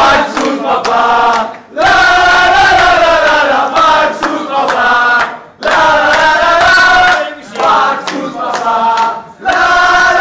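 A crowd of people chanting together in loud repeated phrases, with short choppy bursts and hand clapping between the long held phrases.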